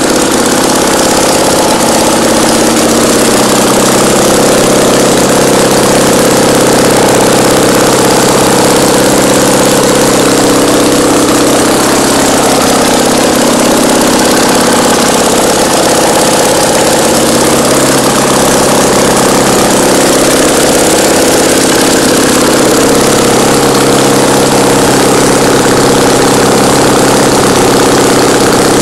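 Fiat 650cc air-cooled two-cylinder engine running steadily on a test bench, loud and unmuffled at close range.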